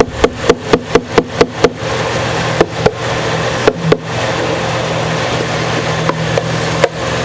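A quick run of about seven light knocks, roughly four a second, then a few scattered single knocks, over a steady low hum.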